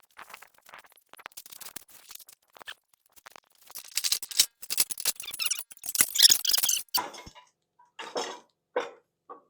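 Steel bolts scraping, squeaking and clicking against the edges of tight-fitting holes in a steel plate as the plate is wiggled. The scraping is busiest in the middle, then thins to a few separate knocks near the end.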